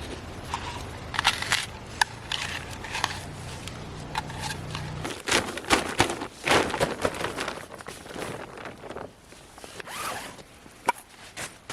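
A zip being pulled in several short strokes, among rustling and small clicks of handling gear.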